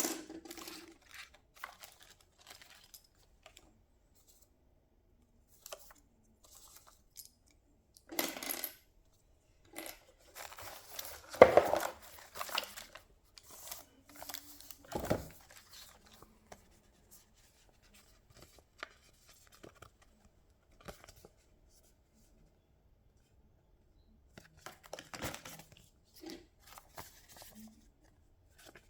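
Intermittent handling noises from unboxing a keyboard: rustling and scraping of packaging with small knocks, loudest about eleven seconds in.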